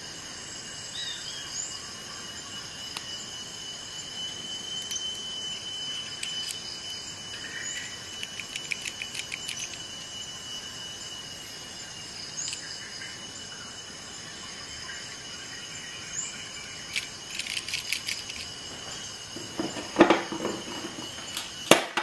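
Light metallic clicks and ticks of a Leatherman Surge multi-tool being handled as its corkscrew is folded out, in quick runs, over a steady high whine. Two louder knocks come near the end.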